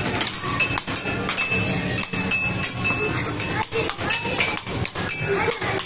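Air hockey mallets and puck clacking against each other and the table rails in an irregular series of sharp clicks, over background chatter and the tones of arcade machines.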